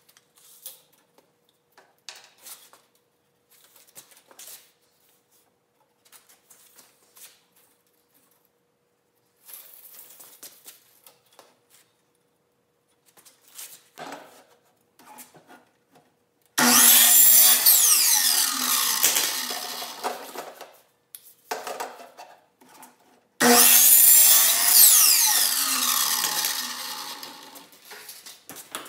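Electric sliding compound miter saw cutting PVC pipe, twice: each time the motor starts suddenly, cuts, then winds down with a falling whine. Before the cuts, light knocks and rubbing as the pipe is handled and positioned on the saw.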